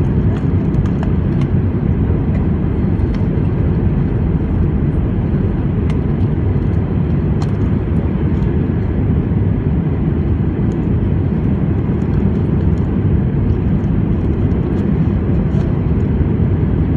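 Steady low rumble of an Airbus A319's engines and airflow, heard inside the passenger cabin.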